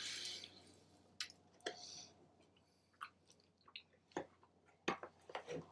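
A man chewing a mouthful of bacon cheeseburger, with scattered soft wet mouth clicks and smacks.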